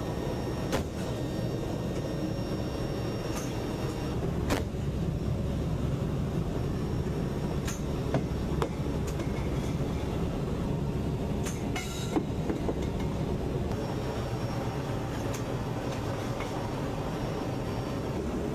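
A vehicle's steady low rumble, with a few sharp clicks and knocks scattered through it.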